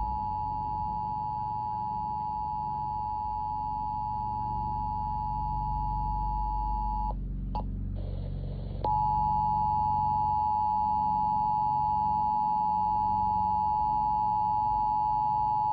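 Emergency Alert System attention signal, the steady two-tone alert (853 and 960 Hz) played through weather alert radio speakers, marking the start of a Required Monthly Test. The tone drops out for about a second and a half near the middle, with a click, then comes back louder.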